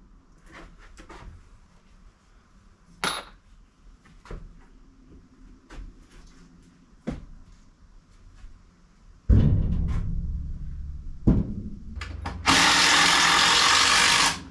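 Wooden shelf boards knocking and clattering as they are handled and set in place, with a heavy thump a little past halfway. Near the end a power drill runs steadily for almost two seconds, driving a screw into the wooden shelf frame.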